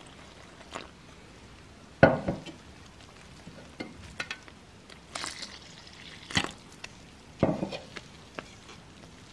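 Wire whisk stirring flour and water in a stainless steel bowl as water is poured in, with irregular sudden clacks and scrapes of the whisk against the bowl. The loudest clack comes about two seconds in.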